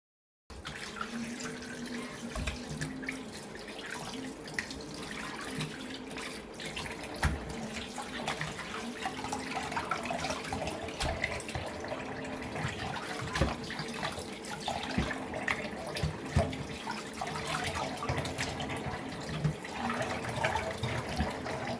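Tap water running into a kitchen sink, with scattered knocks and clatter of things being handled in the sink.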